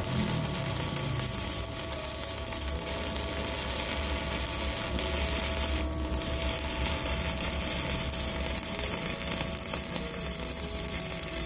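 Stick-welding arc from a WeWeld ARC 220 inverter welder burning a 3.2 mm E6013 electrode at about 160 A, crackling and sizzling steadily without a break. It is a hot, strong arc.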